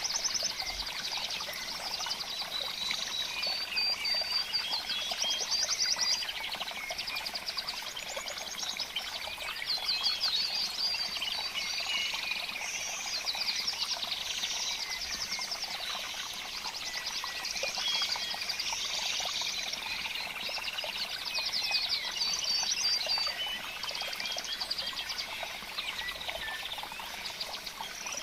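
Dense outdoor chorus of small birds chirping and trilling without pause, many calls overlapping.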